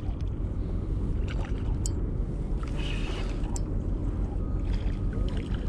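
Steady low rumble of wind on the microphone, with a few faint clicks as the spinning rod and reel are handled.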